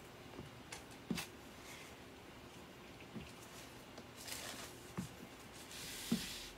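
Plastic fork dabbing and dragging paint across a canvas: faint, irregular taps with a couple of short scratchy strokes.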